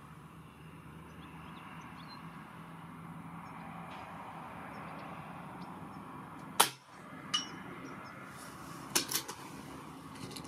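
A single shot from a Reximex Throne Gen-2 PCP air rifle in .177: one sharp, loud crack about two-thirds of the way in, with a fainter click under a second later and two quick clicks near the end. Steady wind noise runs underneath.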